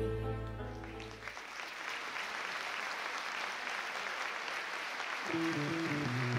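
The last held chord of the music dies away in the first second or so, and a large hall audience applauds. About five seconds in, a new piece of music starts under the clapping.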